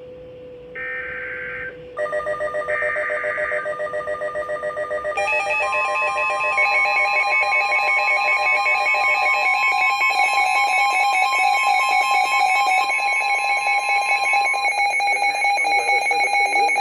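Emergency Alert System activation on NOAA Weather Radio for a severe thunderstorm warning. In the first few seconds come two short bursts of the SAME digital header data, a warbling screech each about a second long. Then a weather radio receiver's alarm starts beeping loudly in fast pulses, layered for several seconds with the steady 1050 Hz NWS warning tone.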